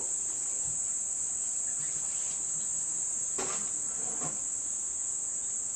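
Steady, high-pitched drone of an insect chorus, a continuous shrill buzz without pauses.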